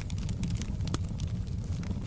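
Wood fire burning in a fireplace: a steady low rumble of flames with scattered sharp crackles and pops.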